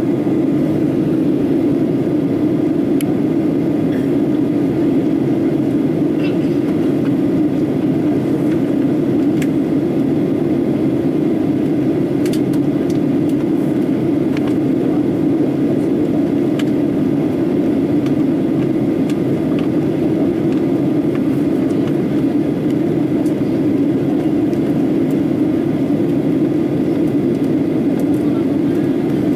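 Jet airliner cabin noise in flight: a steady, even rush of engine and airflow noise heard through the fuselage, with a few faint ticks.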